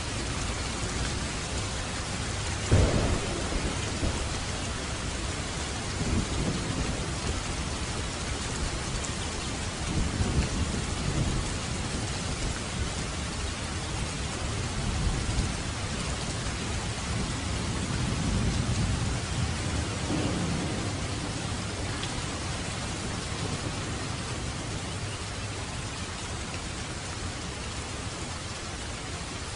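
Steady heavy rain with rolls of thunder: a sharp clap about three seconds in, then several more low rumbles through the middle of the stretch.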